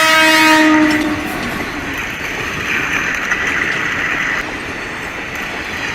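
A train horn blast that dips slightly in pitch and cuts off about a second in. It gives way to the steady noise of a train running along the rails.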